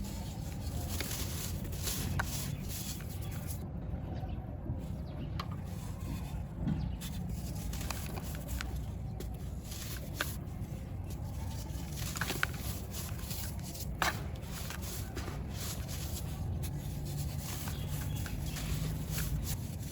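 Dry, crispy material crumbled by hand, with scattered sharp crackles and small crunches over a steady low background rumble.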